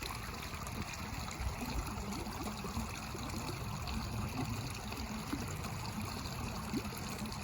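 Running water trickling steadily, with no break.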